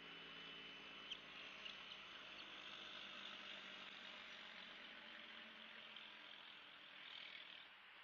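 Faint outdoor background: a steady hiss under the low, even hum of a distant engine, which fades near the end. There are a few soft clicks between one and two and a half seconds in.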